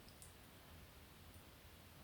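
Wood fire in a fireplace crackling faintly: a few soft ticks, the clearest about a quarter second in, over a low steady hiss.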